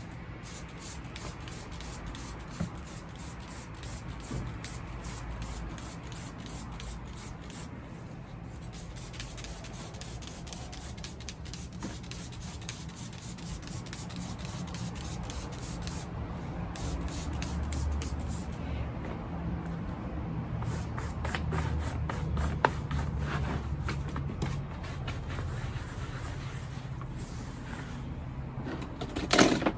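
Spray bottle spritzing black Rit dye onto a carpet floor mat in runs of rapid squirts with short pauses between them.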